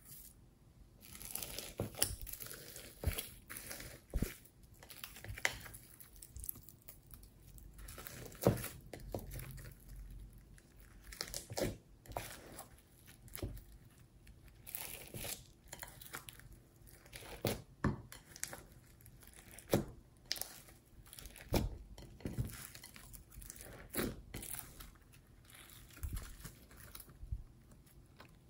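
Glossy slime, full of glitter, sequins and beads, being squished, stretched and folded by hand in a glass bowl: irregular sticky crackles and pops, with a sharper pop every second or two.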